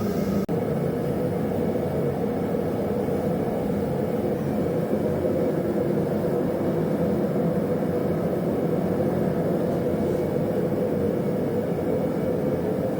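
Bladesmithing forge running with a steady rushing roar and a low hum, heating a steel billet toward forge-welding heat of about 2300 degrees. The sound breaks off for an instant about half a second in.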